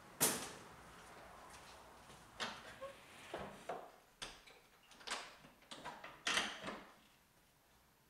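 Hinged double garage doors being shut: a sharp bang as a door swings closed, then a run of knocks, clunks and rattles as the doors are pushed together and latched at the top.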